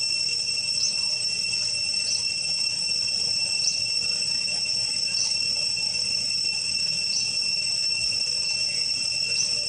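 Steady high-pitched insect drone, such as cicadas or crickets, with short chirps repeating about once a second over it.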